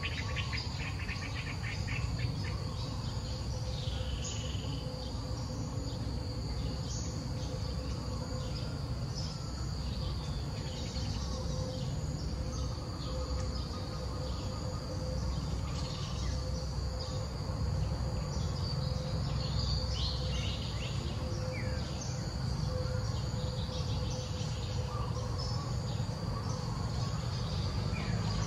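Outdoor insect chorus: a steady, high insect drone goes on throughout. Short, falling bird chirps come now and then, over a constant low rumble.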